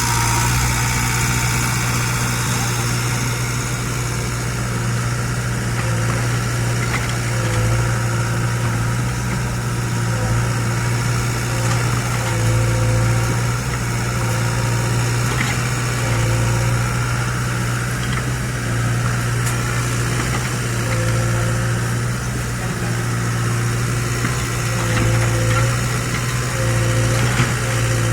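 Excavator's diesel engine running steadily, with a short higher tone coming and going every few seconds.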